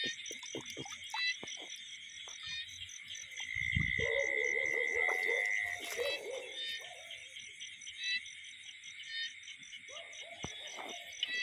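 Night chorus of frogs and insects calling steadily in a rain-flooded rice field, a dense pulsing trill that runs without pause. About three and a half seconds in there is a low thump, then a louder noise that lasts about two seconds.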